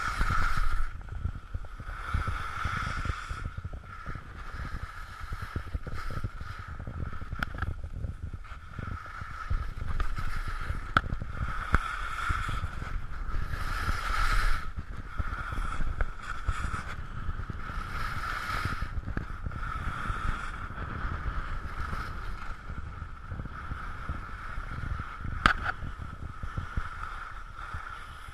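Wind buffeting a skier's action-camera microphone, with the hiss of skis sliding and carving on packed snow that swells and fades with each turn every few seconds. One sharp click near the end.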